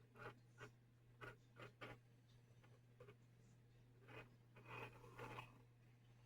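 A pencil being played with by a small pet: faint, irregular scratchy scrapes and clicks of the pencil, with a longer run of scraping near the end.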